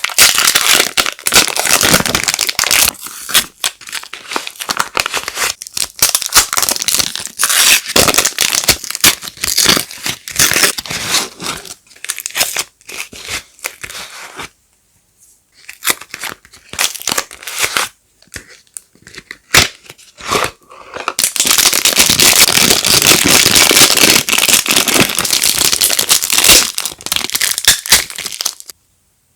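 Soap packaging being torn open and crinkled by hand: dense tearing and crackling, with a lull about halfway through and a second long stretch of crinkling near the end.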